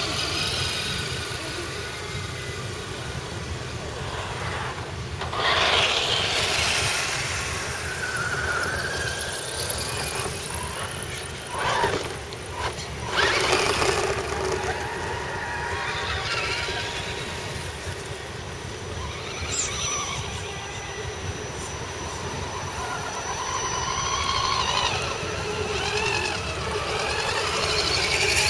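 Electric motors and gear drives of scale RC crawler trucks whining as they drive through grass, the pitch rising and falling with the throttle and swelling louder as trucks pass close.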